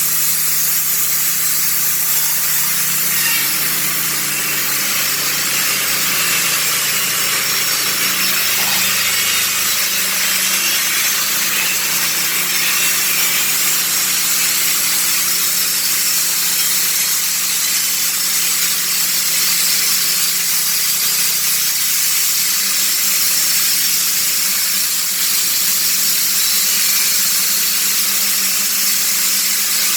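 Honda petrol-engined sawmill running steadily under load as its blade cuts through a log, a steady engine note under a constant hiss of sawing. The engine note dips briefly about nine seconds in.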